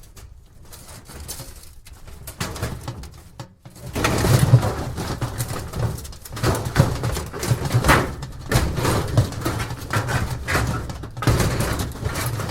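Thin sheet-metal junk debris being shaken and dragged, a continuous tinny rustling and clattering of many small overlapping knocks and scrapes. It is softer for the first few seconds and grows louder and busier from about four seconds in.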